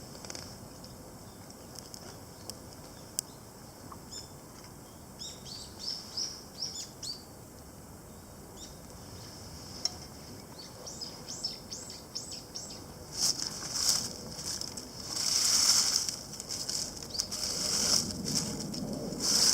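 A bird calling in two quick runs of short, falling, high whistled notes. From about two-thirds of the way through, louder bursts of crackling, hissing noise take over.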